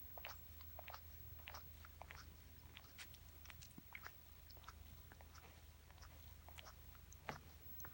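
Cat licking and grooming its fur: faint, irregular wet tongue clicks, several a second, over a steady low hum.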